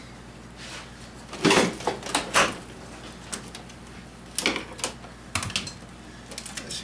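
Irregular knocks and clunks of parts and tools being handled during a vehicle teardown, with a cluster of louder ones about one and a half to two and a half seconds in and another about four and a half seconds in.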